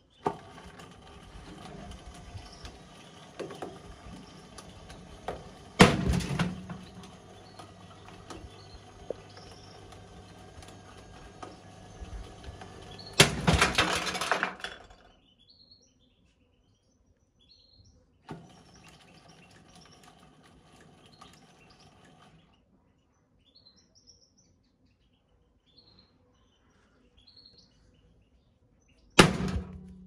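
Whirlpool washing machine's drum motor running with a steady whine in stop-start stretches, as in a wash tumble, with loud heavy knocks from the stones and bricks in the drum. The run stops about halfway, starts again briefly, and one more loud knock comes near the end. Birds chirp faintly in the pauses.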